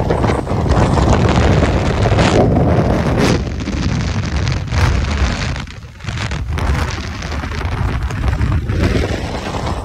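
Strong wind buffeting a phone's microphone in flight while hanging on a line beneath a helicopter, with the helicopter's engine and rotor noise mixed in. The rush comes in gusts and dips briefly about six seconds in.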